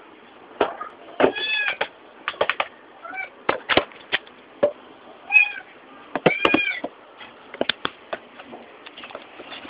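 Irregular clicking and knocking with a few short chirping squeals from the loose crankshaft pulley of a running Mitsubishi 4G15 carburettor engine, the sign of the pulley having come loose on the crankshaft.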